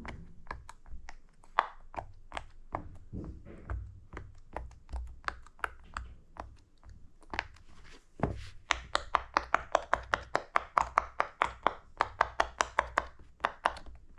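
Bubbles of a silicone pop-it fidget toy being pressed in, each giving a small pop. Scattered pops at first, then from about eight seconds in a quick, steady run of louder pops, about five a second.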